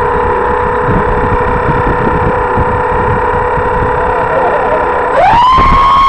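Twin electric motors and propellers of a radio-controlled Canadair CL-415 model flying boat running with a steady whine, then throttled up about five seconds in, the whine jumping sharply higher and louder.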